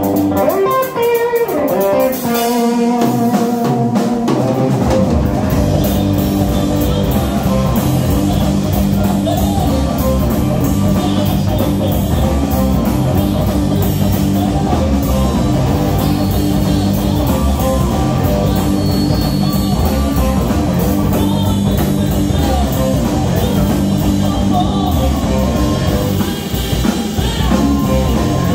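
Live blues-rock band playing: electric guitar, electric bass, drum kit and amplified harmonica. The low end drops out for the first few seconds, and the bass comes back in about five seconds in.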